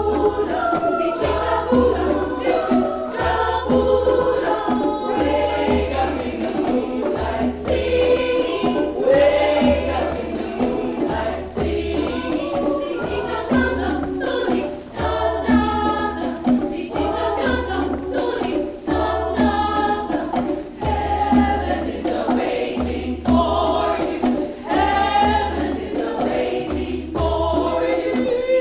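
Choir singing a South African gospel song in close harmony, with a steady low beat pulsing underneath about once every second and a quarter.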